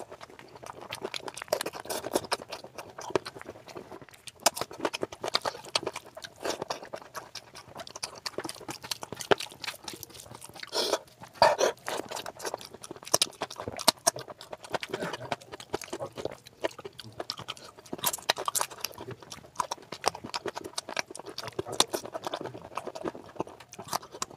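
Wet chewing and lip-smacking of a man eating oily rice and curry by hand, close to the microphone: a dense, irregular run of sharp smacks and clicks.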